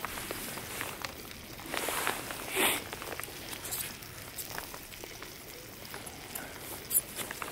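Raclette cheese sizzling and bubbling in a non-stick hot-sandwich toaster pan over a charcoal grill: a steady hiss with scattered small crackles, and one brief louder rush of noise about two and a half seconds in.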